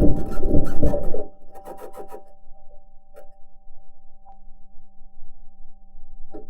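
Perseverance rover's metal wheels rolling over Martian rock, picked up by the rover's onboard microphone. Loud clanking and grinding fills the first second or so, then scattered clicks follow. A steady hum of several tones runs throughout.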